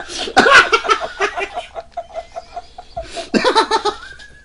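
Men laughing in a run of short repeated bursts, with another burst of laughter a little after three seconds.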